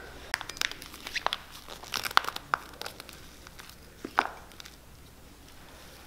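Crinkling plastic bag of hot cork filler, with the crunch and scrape of the cork granules as they are pushed out and spread into a boot's insole cavity with a metal spatula. It comes as a scatter of short sharp crackles and clicks that thin out after about four seconds.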